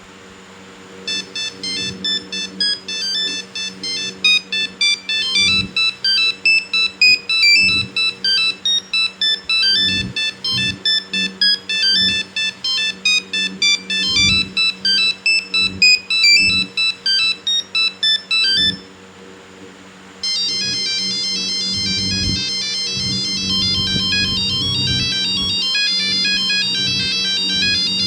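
Nokia 1100 mobile phone playing its built-in monophonic beeping ringtones. One choppy tune of short, separated notes runs for about 18 seconds and stops. After a brief pause a different, faster and more continuous tune begins.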